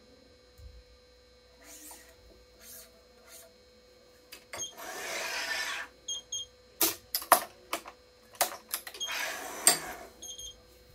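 Yonex Aerobite Boost badminton string being drawn through the string bed of a racket on a stringing machine: two long pulls, each a little over a second, with a run of sharp clicks between them from handling the string, clamps and tension head.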